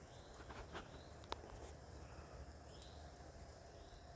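Near silence, with a few faint clicks and two faint, short high rising chirps.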